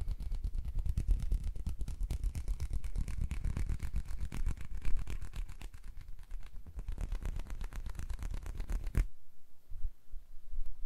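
Fingers and hands rubbing and fluttering right against a binaural microphone, a fast, dense crackly rustle with heavy close-up rumble. It stops abruptly about nine seconds in, leaving only faint handling sounds.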